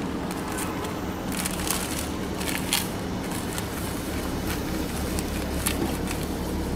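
Paper sticker backing crinkling as a large adhesive sticker is rubbed and smoothed onto a car windshield, with a few sharp crackles. A steady low rumble of street traffic runs underneath.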